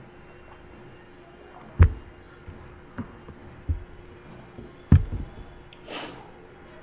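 Handling noise close to the microphone: two dull thumps about three seconds apart, with a few softer knocks between them, over a faint steady hum. A short breathy rush comes near the end.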